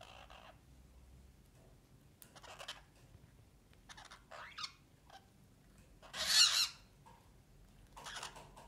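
Orange-fronted parakeets giving about five short, harsh squawks spaced a second or two apart, the loudest about six seconds in.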